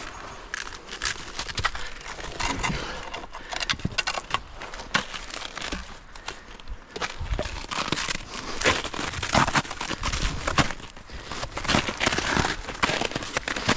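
Footsteps crunching and crackling over frozen ground and brush, in an irregular walking rhythm.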